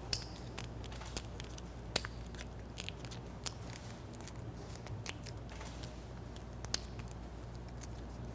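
Two halves of a 3M reclosable fastener being pressed and clipped together: a scatter of small clicks and crackles with a few sharper snaps as the pieces lock into place.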